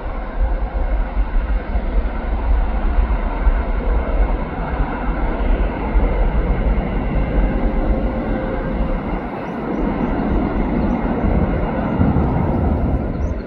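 Twin turbofan engines of an easyJet Airbus A320 at takeoff thrust as the airliner lifts off and climbs away: a loud, steady roar with a heavy low rumble. The roar grows deeper in the last few seconds as the jet draws away.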